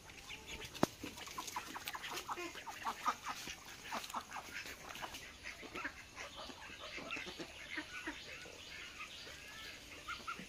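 A flock of chickens, hens and roosters, clucking: many short, overlapping calls. A single sharp click about a second in.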